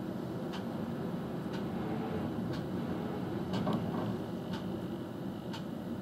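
Steady low rumble of cars in traffic, with a short sharp tick repeating about once a second.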